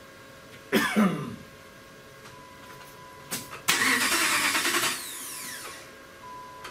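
Starter cranking a 2007 Dodge Ram 1500's engine in two short tries, one about a second in and a longer one a little past the middle that winds down afterwards; the engine does not catch. A crank-no-start, which the mechanic traces to the fuel pump getting no power (an open fuel pump control circuit code).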